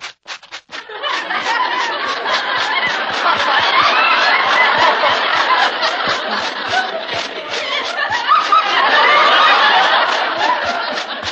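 Studio audience laughing, swelling up about a second in and going on, over a brushing sound effect of clothes being brushed off, about three strokes a second.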